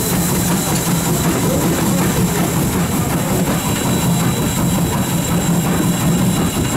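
Norfolk and Western #475, a 4-8-0 steam locomotive, running at speed: a loud, steady rush of the engine and its wheels on the rails, heard close up from beside the cab.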